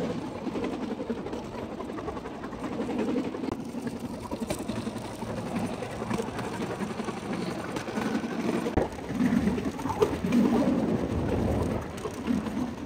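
Bamboo train (norry) riding along the rails: the wooden platform rattling over the track with its small engine running.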